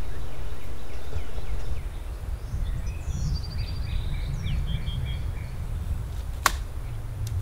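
Low wind rumble on the microphone with small birds chirping and trilling in the trees, and one sharp click near the end. The rumble drops about two seconds in.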